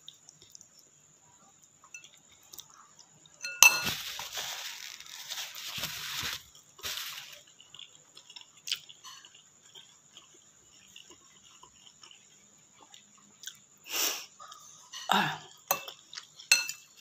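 A metal fork clinks against a bowl now and then while noodles are eaten, with some chewing. A sharp clink about three and a half seconds in is followed by a rushing sound lasting nearly three seconds.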